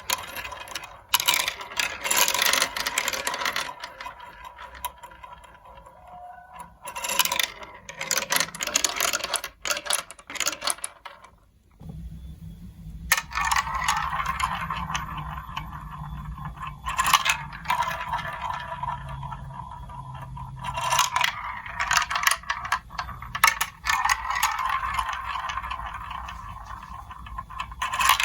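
Marbles rolling and clattering down a plastic building-block marble run, with scraping runs broken by sharp clicks as they drop and hit the pieces. About twelve seconds in, a steady low hum joins in under the rolling.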